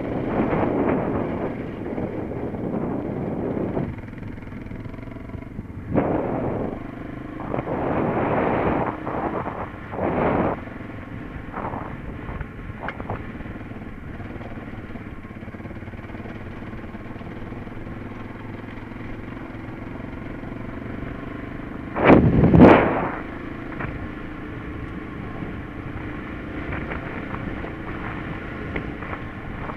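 Euromot 250 enduro motorcycle engine running steadily as the bike rides a rocky dirt trail, with louder surges of noise in the first ten seconds and a sharp, loud burst about two-thirds of the way through.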